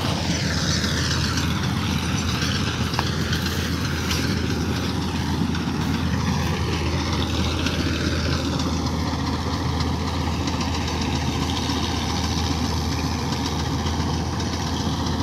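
Combine harvester engine running steadily, a constant low hum with a noisy wash of machinery over it.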